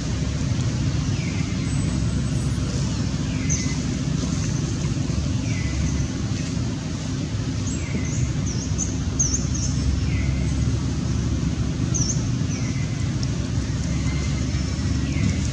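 Steady low outdoor rumble with small birds calling over it: a short falling chirp about every two seconds and a few quick high chirps.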